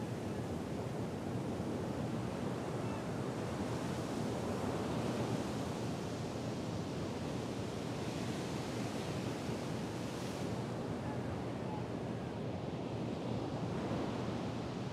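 Sea surf: a steady rush of breaking waves.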